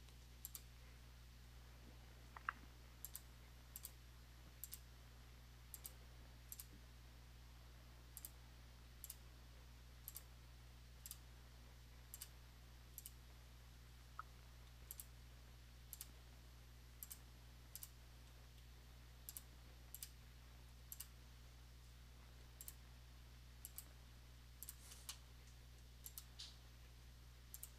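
Faint, sparse clicks of a computer keyboard and mouse, roughly one a second, over a faint steady low hum.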